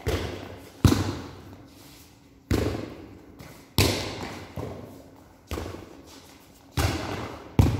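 Volleyball being struck again and again in a rally: seven sharp slaps of hands and forearms on the ball at uneven gaps of one to two seconds, each echoing in a large hall.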